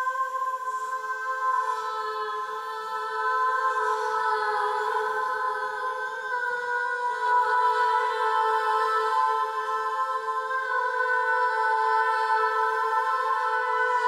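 Background music of long held notes forming a sustained chord, with no beat; the notes shift only slightly now and then.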